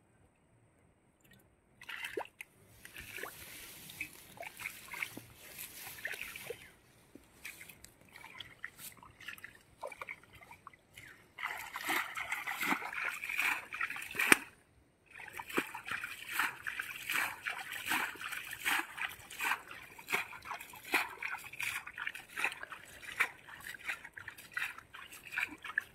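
Shallow muddy pond water sloshing and splashing in uneven bouts, with short quiet gaps between them.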